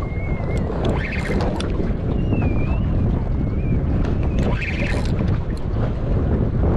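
Wind buffeting the microphone on a boat, a steady low rumble with scattered clicks, and a thin wavering whistle near the start and again around the middle.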